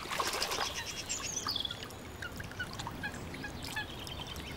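Wild birds calling around a lake: short high chirps scattered throughout, with a quick falling run of notes about a second in. A short noisy flurry right at the start.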